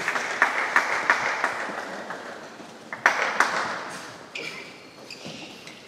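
A few people clapping and cheering in an echoing sports hall just after a futsal goal. About three seconds in there is a sharp bang followed by a burst of noise that fades away.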